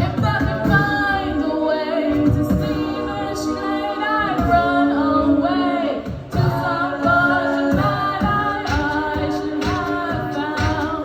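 Music: a song sung by several voices in harmony, a cappella style.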